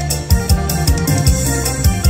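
Instrumental backing track with a steady drum beat, kick drum and hi-hat, playing without any singing.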